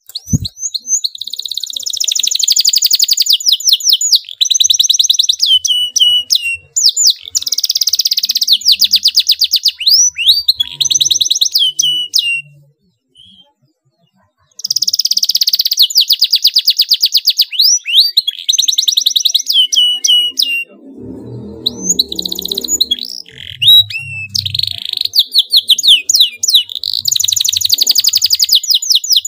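Domestic canary singing at full intensity, long tight rolls of rapidly repeated high notes in phrases, with a pause of about two seconds midway.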